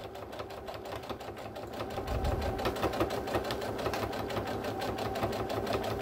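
Electric sewing machine running steadily, stitching a seam through two layers of fabric and quilt batting, with a fast, even stitch rhythm that gets a little louder about two seconds in.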